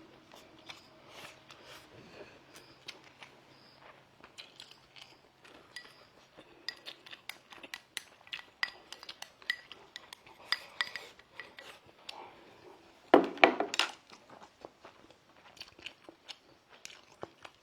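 A utensil clinking and scraping against a bowl in many light clicks while rice mixed with fermented tofu is stirred, with a louder clatter about thirteen seconds in.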